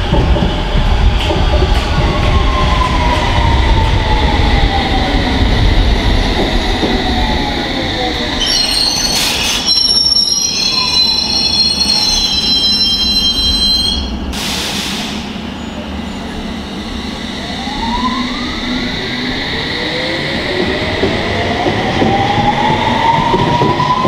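London Underground S7 Stock train running into the platform with a falling whine as it brakes, then standing while a run of high beeps sounds and air hisses briefly, then pulling away with a rising motor whine.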